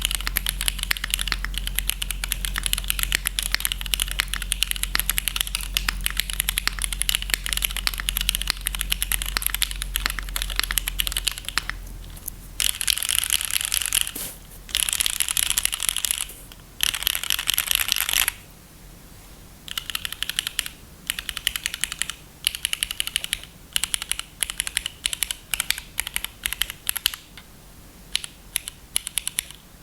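Typing on a QK Neo80 mechanical keyboard with lubed, filmed Cherry Hyperglide Black linear switches in an aluminium plate and no foam: a clacky sound. The keystrokes run fast and unbroken for the first dozen seconds, come in three dense stretches, then fall into shorter bursts with pauses between them.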